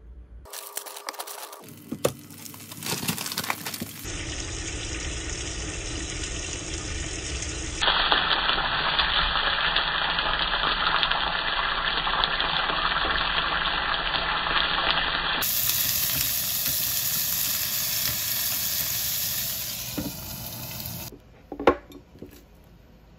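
Food sizzling in oil in a frying pan, a steady hiss that carries on through several edited cuts, with a few short clatters before it starts and a single sharp click near the end.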